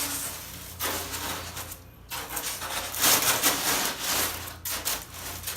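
Styrofoam board being cut by hand: a run of scraping strokes, each about a second long.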